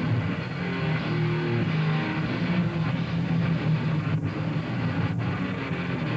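Death metal band playing live: heavily distorted electric guitars and bass holding low, dense chords. The sound is dull and muffled, with almost no treble.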